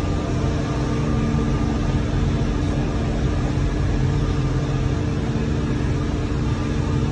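Excavator with a telescopic arm running steadily as it hoists its clamshell bucket, diesel engine and hydraulics making a constant deep hum with a few held tones.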